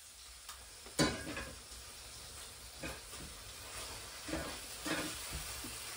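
A few sharp knocks and clatters of plates and utensils over a faint steady hiss.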